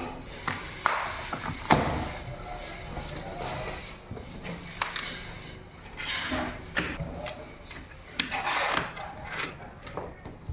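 Cardboard TV box being handled and opened: scattered knocks, scrapes and rubbing, with a few sharp clicks.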